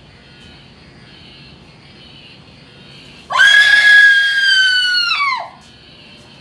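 A loud, high-pitched scream starting suddenly about three seconds in, held for about two seconds and dropping in pitch as it breaks off, as a masked figure jumps out in a haunted-house scare.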